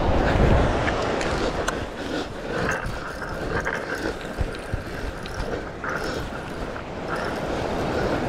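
Spinning reel being cranked against a hooked chum salmon, with small clicks of the reel and rod handling, over wind buffeting the microphone and surf. The wind noise is loudest for about the first second.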